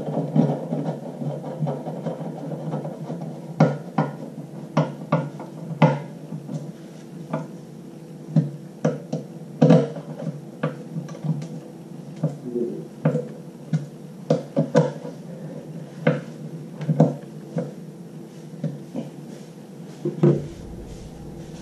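Irregular metal clicks and knocks from a screwdriver working the threaded centre rod that holds a pleated cartridge filter on an industrial vacuum's head, over a steady low tone.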